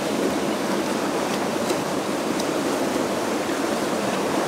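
Flowing river water rushing steadily along the rocks.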